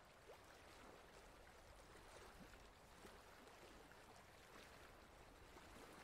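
Faint, steady rush of a shallow stream running over rocks, with many small gurgles and splashes.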